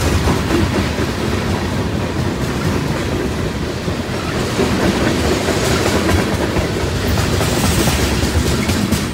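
Freight train of boxcars and tank cars rolling past at close range, steel wheels clattering over the rail joints. The sound starts to fade right at the end as the last cars go by.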